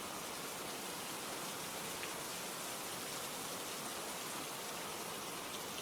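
Steady rain sound: an even hiss of rainfall.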